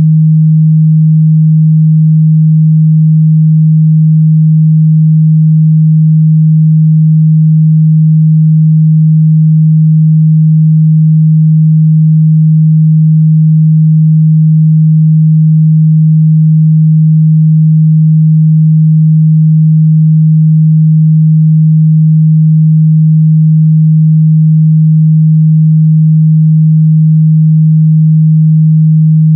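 A steady, unbroken 157 Hz sine-wave test tone, a single low hum with no change in pitch or level.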